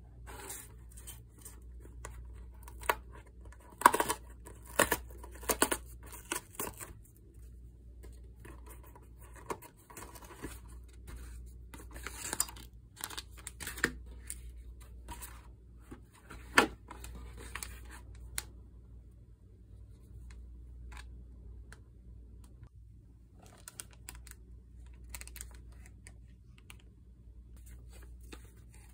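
Close-up handling sounds: irregular sharp clicks, taps and short scraping rustles, busiest in the first half, over a low steady hum.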